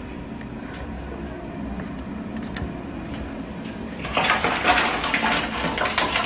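Paper tea sachets rustling, with small taps, as they are handled and slotted into a clear acrylic tea organizer, starting about four seconds in over a steady low hum.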